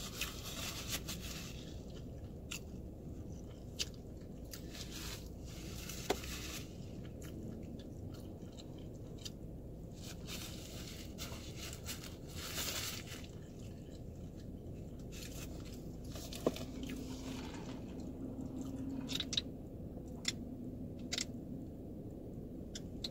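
Close-up chewing and biting of a fried chicken sandwich, with scattered sharp mouth clicks between bites.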